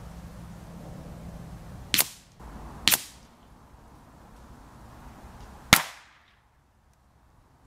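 .22 rimfire rifle firing three shots: two about a second apart, then a third some three seconds later, each a sharp crack with a short fading tail.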